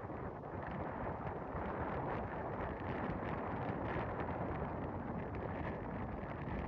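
Steady wind buffeting the microphone, mixed with the wash of breaking sea surf.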